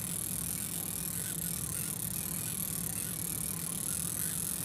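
Steady mechanical whirring with a light rattle from an electric kayak's drive, running at an even speed while trolling.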